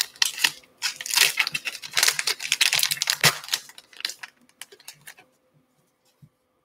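The wrapper of a Gypsy Queen baseball card pack crinkling and tearing as it is pulled open by hand, stopping about four seconds in. A few faint ticks follow as the cards are handled.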